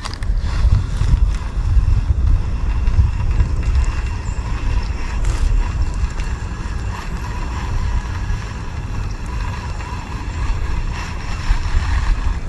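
Wind buffeting the microphone: a low, irregular rumble.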